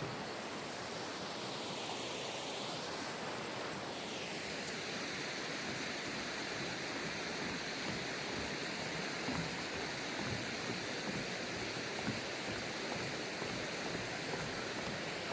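Valley stream rushing: a steady, even hiss of running water, with a few faint ticks near the end.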